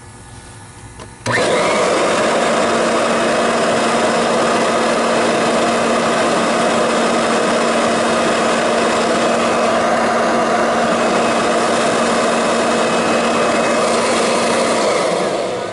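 Kirby Avalir G10 upright vacuum switched on about a second in, its motor running steadily at full speed, then switched off near the end and winding down.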